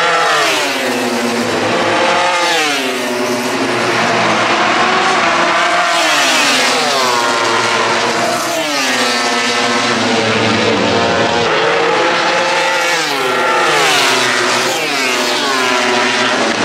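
MotoGP racing motorcycles, 1000 cc four-cylinder four-strokes, at full throttle down the straight. The engine pitch climbs and then drops sharply with each upshift, again and again as bikes pass in succession.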